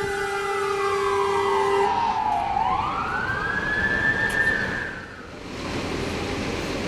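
Fire engine wailing siren as the vehicle passes: the pitch sweeps down, then back up, and fades out about five seconds in. A steady horn blast cuts off about two seconds in, and road and engine noise continues after the siren fades.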